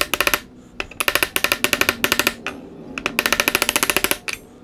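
Rapid light hammer taps on a metal hub flange seated on a wooden wheel hub, in three quick rattling bursts of many strikes each.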